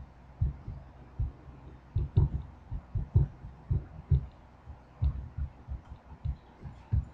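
Marker writing on a whiteboard: an irregular run of short, dull knocks, about two or three a second, with a few faint ticks of the marker tip.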